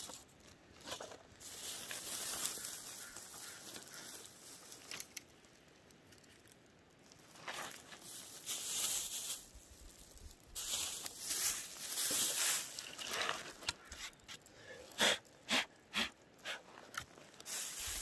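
A thin plastic shopping bag rustling and crinkling in irregular bursts as it is handled. There is a quieter lull around the middle, and a few short sharp clicks come near the end.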